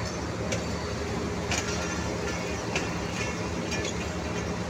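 Passenger train coaches running along the track, a steady rumble with the wheels clicking over rail joints about once a second.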